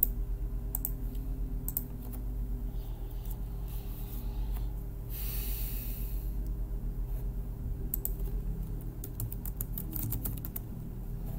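Computer keyboard keys clicking, scattered at first and in a quick run near the end, over a steady low hum. A short hiss comes about halfway through.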